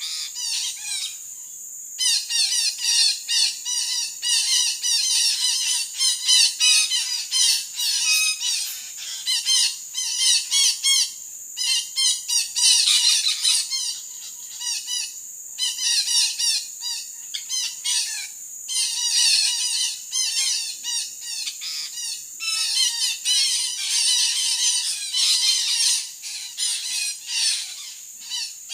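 Parakeets (betet) calling, a dense run of harsh, rapid, repeated squawks with brief pauses every few seconds.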